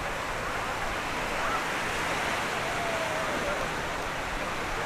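Steady wash of surf on a beach, with faint distant voices of a crowd.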